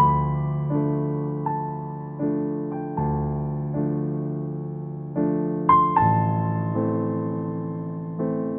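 Background piano music: a slow, gentle tune of notes and chords struck about every three quarters of a second, each fading away before the next.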